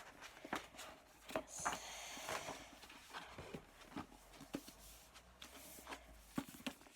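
Light, scattered taps and rustles of a hardback book being handled, with no steady sound behind them.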